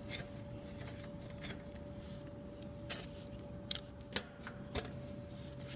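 A 1/4-inch screwdriver turning out small screws in an AC unit's control panel: light scraping, with a few sharp metal clicks in the second half.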